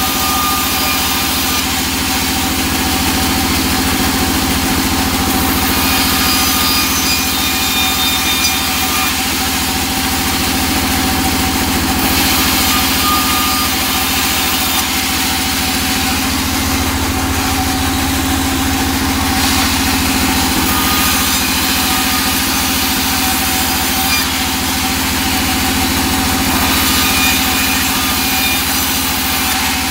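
Large sawmill band saw running steadily with a constant motor hum while its blade rips teak boards lengthwise. The cutting noise swells and eases several times as each board is pushed through the blade.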